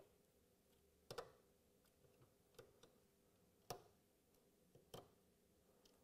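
A few faint, short clicks, roughly one a second and unevenly spaced: voltage-tester probe tips tapping onto the metal terminals of an electrical contactor, checking each point for voltage.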